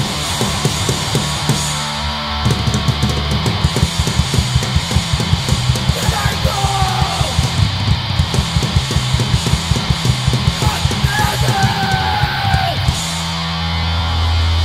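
Hardcore punk band playing live: distorted electric guitar and bass over fast, pounding drums. Near the end the drums drop out, leaving a held, ringing guitar and bass chord.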